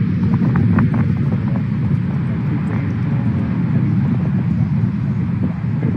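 Turbofan engines of a four-engine jet airliner climbing away after takeoff: a steady low rumble with a few crackles in the first second.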